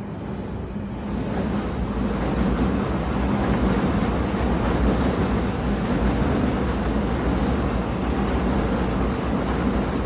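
Train running: a steady low rumble and rushing noise that swells over the first couple of seconds, then holds level.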